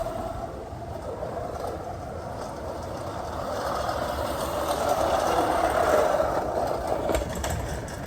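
Vintage Suffolk Super Clipper 22 push mower running over grass with a steady mechanical whirring that swells about five seconds in.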